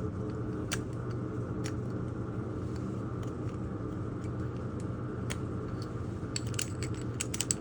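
Scattered small clicks and scrapes of a small screwdriver picking at the broken plastic check valve inside a Navien tankless water heater, coming quicker near the end, over a steady low hum.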